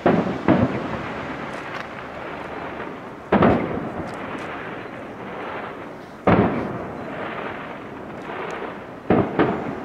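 Aerial firework shells bursting: sharp bangs, two about half a second apart near the start, one about three seconds in, one about six seconds in and two close together near the end, each followed by a rolling echo.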